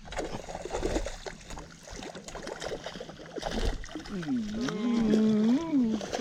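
Knocking and splashing noises for the first few seconds, then a person's long wavering vocal call, rising and falling in pitch, for about two seconds near the end.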